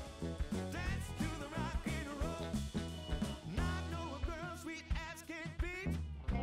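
Background music: a song with singing over a drum beat.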